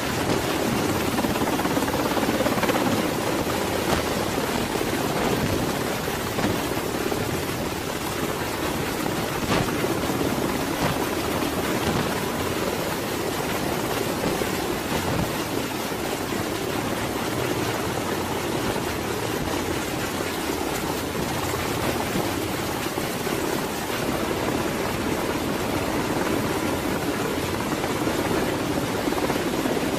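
Black Hawk-family military helicopter hovering: a steady, dense noise from its rotors and turbine engines that holds level throughout.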